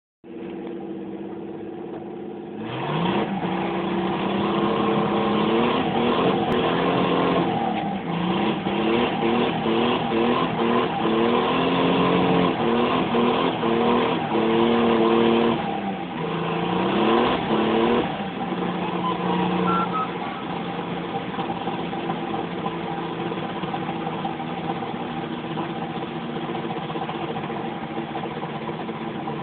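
1981 Datsun 280ZX's straight-six engine running under way. Its revs rise about three seconds in and hold high, with several quick dips in pitch that come straight back up, then settle to a steadier, lower note for the last ten seconds. The owner feels a weird, misfire-like stumble around 3,000–4,000 rpm in third gear at light vacuum, since regapping the spark plugs to .034.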